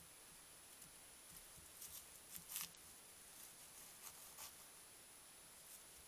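Faint rustling and scratching of badgers moving and foraging in garden leaf litter. There is a cluster of these sounds about two seconds in, the loudest around two and a half seconds in, and two shorter ones just after four seconds, over a thin steady high-pitched whine.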